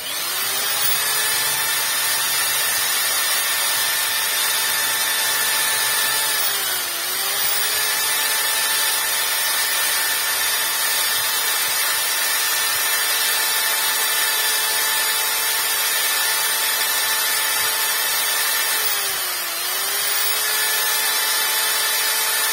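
Electric drill running steadily with a grinding bit in the exhaust port of a Suzuki Tornado 118cc two-stroke cylinder, porting it out. Its whine sags in pitch twice under load, about seven seconds in and again near the end, then recovers.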